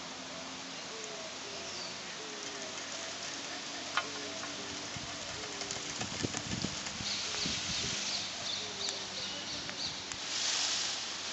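Outdoor ambience: a steady hiss with a faint, short, low call repeating about twice a second. Low thumps and clicks come in the middle, then quick faint high ticks, and a short rustling rush of noise near the end.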